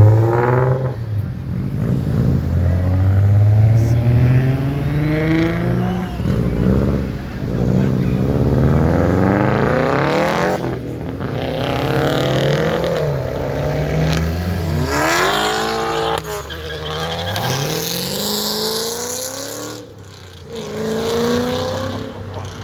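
Car engines revving and accelerating, one after another, the pitch repeatedly climbing and dropping; a car sweeps past about fifteen seconds in.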